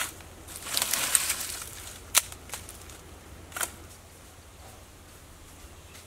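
Dry twigs and fallen branches snapping and crackling underfoot: a sharp snap at the start, a burst of crackling about a second in, then single snaps twice more.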